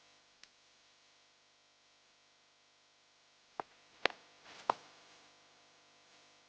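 A few sharp clicks or taps over a faint steady background: a small one about half a second in, then three louder ones close together about three and a half to five seconds in.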